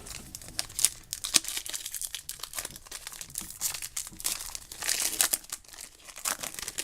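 A stack of trading cards and their pack wrapper being handled: continuous crinkling and rustling with many sharp little clicks and taps as the cards are squared up and sorted.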